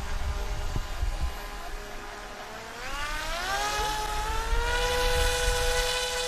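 A radio-controlled model boat's sound: a faint steady hum, then about halfway through a single pitched tone slides up and holds steady and loud, over a low rumble.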